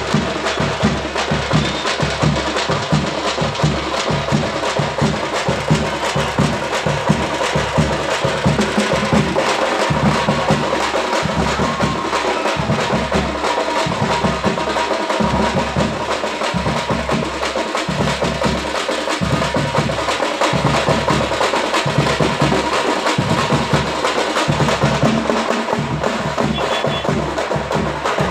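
A street drum band playing a rapid, driving beat: sharp stick strikes over deep bass-drum thumps.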